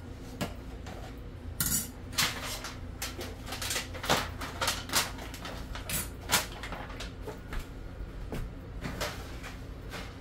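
Kitchen handling noise: an irregular run of clatters, clinks and knocks from a disposable aluminium foil baking pan, its foil cover and metal utensils, densest in the middle.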